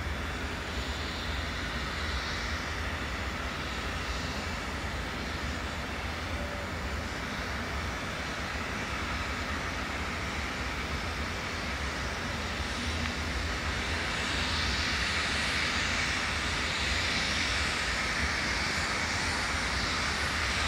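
Shay No. 5, a geared steam locomotive, working slowly along the track: a steady low rumble under a rush of steam and exhaust. It grows louder over the last several seconds as the engine comes closer.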